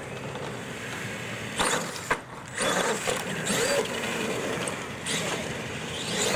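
Radio-controlled monster truck running across concrete, its motor and tyres making a steady noise. Several short, sharp knocks or scrapes stand out over it.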